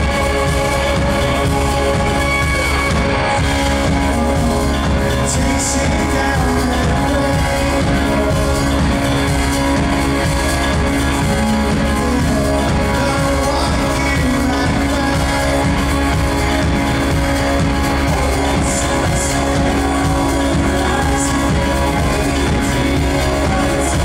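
A rock band playing live, with electric guitars, bass, drums and keyboards under a male lead vocal. The level is loud and steady throughout.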